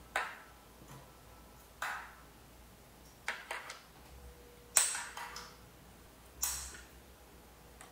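Hard plastic clicks and knocks as a Baofeng UV-5R's battery pack is fitted and slid onto the radio body. The loudest is a sharp snap just before five seconds in, as the pack latches, and a brief rustle of handling follows.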